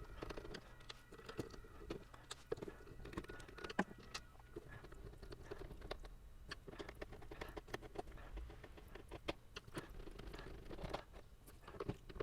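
Faint, irregular clicks and light taps of small hand-tool work on a milk frother's plastic housing, as its base is screwed back on.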